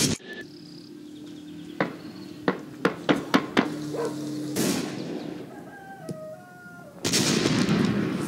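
A ball knocking on packed dirt, about seven sharp knocks coming faster over a couple of seconds, with a low steady hum behind. A few short chicken calls follow. About seven seconds in, an explosion's blast hits suddenly and is the loudest sound.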